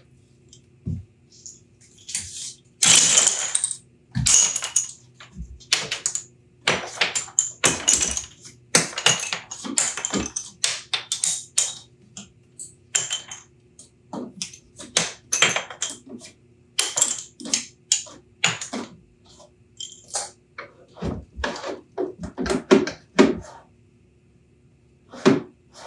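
Wooden drawers pushed in and pulled out of a cabinet on drawer slides, being tested for fit: repeated short sliding rushes, with knocks and clicks as they stop.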